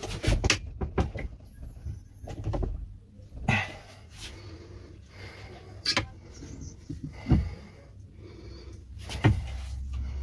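Irregular metallic clicks and knocks, about eight sharp ones, as a hydraulic lock-breaking tool is worked against a hardened steel padlock that it does not manage to break.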